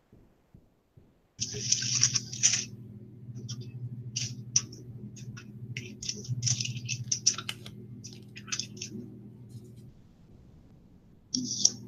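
Short, scratchy bursts of rustling and handling noise over a steady low buzz. The buzz cuts in about a second and a half in, drops out near the end and comes back just before the end.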